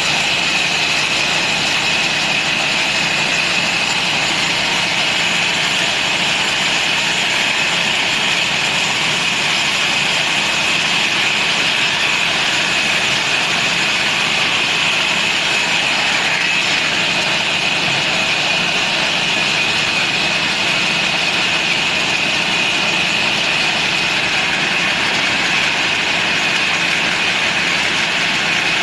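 Sawmill machinery running steadily: a loud, even mechanical noise with a constant high whine.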